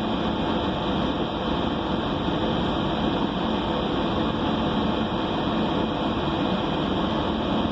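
Steady running noise inside a city bus: engine and ventilation drone with a constant hiss, no distinct coughs or knocks.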